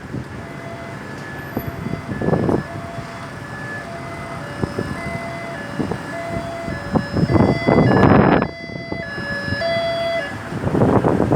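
Ambulance siren sounding as a run of short steady tones that jump between pitches about every half second. Three louder bursts of noise break in: about two seconds in, a longer one around seven to eight and a half seconds, and another at the very end.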